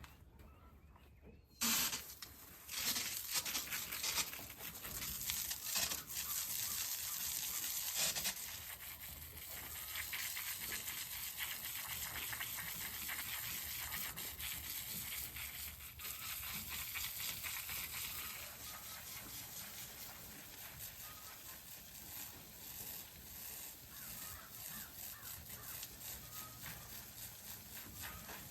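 Garden hose spraying water, a steady hiss that comes on suddenly about two seconds in, lighter in the last third.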